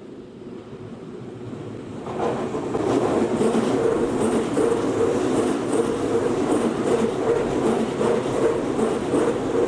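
Tokyu Toyoko Line electric commuter train approaching and running past, growing louder over the first two or three seconds and then holding loud, with repeated clacks from the wheels on the rails.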